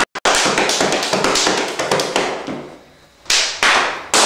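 A rapid, dense run of taps that fades away about three seconds in, followed by a fresh burst of taps.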